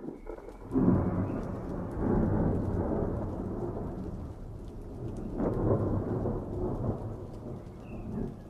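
Thunder rolling: a deep rumble that breaks in sharply about a second in and swells twice more as it rolls on.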